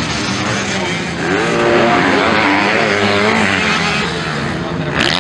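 MX2 motocross bikes racing, their engines revving up and down through the gears, with more than one engine heard at once and the pitch rising and falling.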